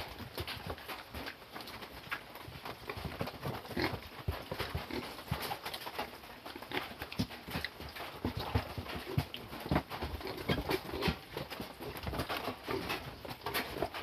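Close-up wet chewing and lip-smacking as ripe papaya flesh is bitten and eaten: a run of soft, irregular clicks and smacks.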